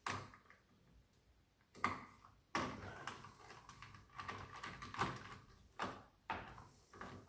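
A screwdriver backing a small screw out of a metal chassis, and fingers handling the loose screw and its washer: faint, irregular metal clicks and scrapes, with a few sharper clicks in the first two and a half seconds.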